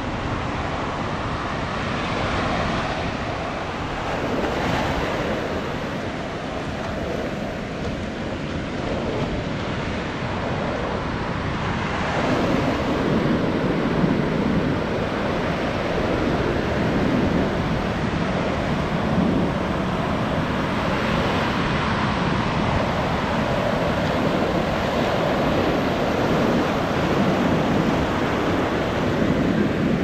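Ocean surf breaking and washing up a sandy shore in a continuous rush, growing louder partway through.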